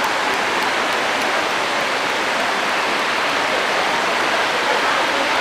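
Steady, even rushing hiss of heavy rain, with no change in level.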